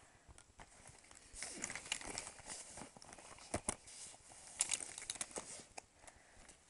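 Handling of plastic makeup tubes and packaging: a run of small clicks, taps and crinkly rustles.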